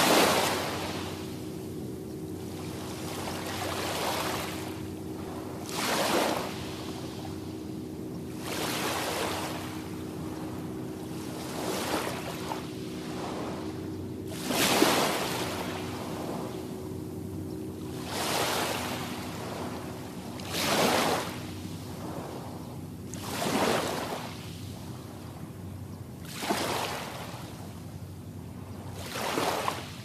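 Small, gentle waves breaking on a sandy beach, each washing in and fading, one every two to three seconds. A steady low hum runs underneath.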